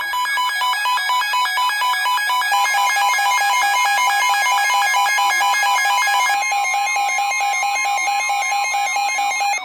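Emergency Alert System warning tones on a NOAA Weather Radio broadcast: steady, loud electronic alarm tones at several pitches, signalling a new warning. A lower tone joins about three seconds in, and the higher tone drops out about two-thirds of the way through.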